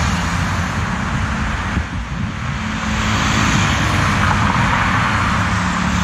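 Road traffic passing on a town street: car and motorbike engines running, a steady loud traffic noise.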